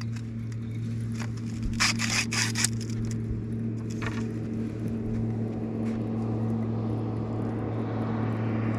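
A motor hums steadily on a fishing boat, with a quick cluster of clattering knocks about two seconds in and a rushing noise that builds over the second half.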